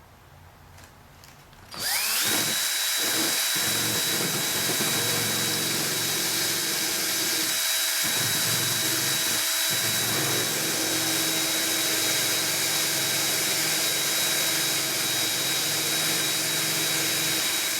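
Cordless drill turning a sharpened, toothed brass-tube cutter to core out a hinge in a balsa control surface. It spins up with a rising whine about two seconds in, runs steadily without pressure on the cutter, and winds down at the end.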